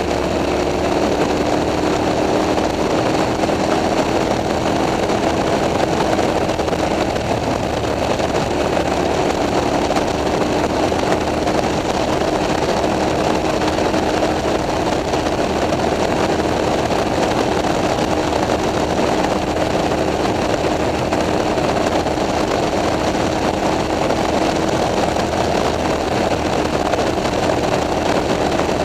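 KTM 990 SMT's V-twin engine with a LeoVince exhaust running steadily at a slow, even cruise, heard from aboard the bike, its pitch holding almost constant throughout.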